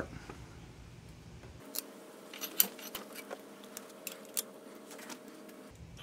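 Faint scattered clicks and clinks of steel being handled: a welded steel test piece set into a cast-iron bench vise and gripped with pliers, over a faint steady hum.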